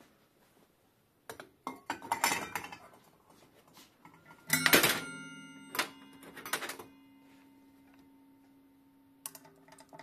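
Metal bicycle hub parts clattering, then a part set down hard in a stainless steel parts bowl, which rings on with a bell-like tone for about five seconds. A few light metallic clicks near the end.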